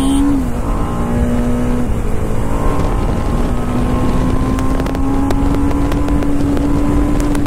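TVS Apache RR 310's single-cylinder engine running under way at road speed, its note dipping briefly and then slowly rising as the bike gathers speed, with wind rushing over the microphone.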